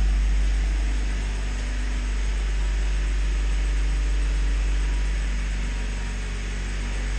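Honda Civic hatchback's four-cylinder engine idling steadily, with a deep low rumble.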